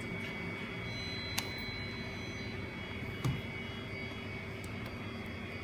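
Steady mechanical hum of workshop equipment running. Over it come a sharp click about a second and a half in and a soft knock a little after three seconds, from a phone's metal frame and parts being handled.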